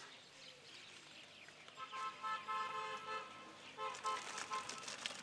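A vehicle horn tooting several short times in a row, faint, from about two seconds in to just past four seconds in.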